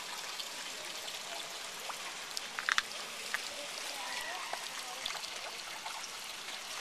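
Steady hiss of water, with a few faint clicks a little over two and a half seconds in.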